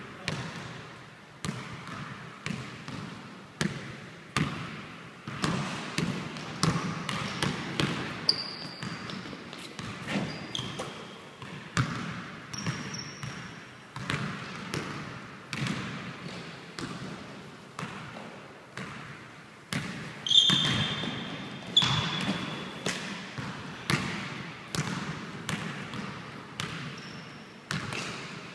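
A basketball being dribbled and bounced on a hardwood gym floor, a steady run of irregular thuds that ring out in the big hall. Several brief high squeaks of basketball shoes on the wood break in, the loudest pair about two-thirds of the way through.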